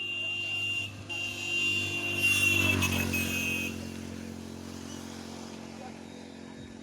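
A motor vehicle, likely a motorcycle, passing close by: its engine rises to a peak about halfway through, drops slightly in pitch as it goes past, then fades away. A steady high-pitched tone sounds over it, breaks briefly about a second in, dips in pitch with the engine and stops a little past halfway.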